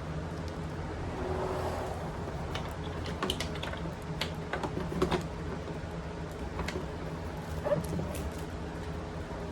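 Scattered light clicks and knocks of hand work on tail-light parts and wiring, most between about two and a half and five seconds in, with another near the end, over a steady low hum.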